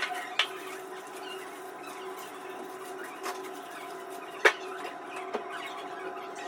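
A few short clicks and knocks as the handle is worked off a worn-out restroom door lockset, the sharpest about four and a half seconds in, over a steady hum.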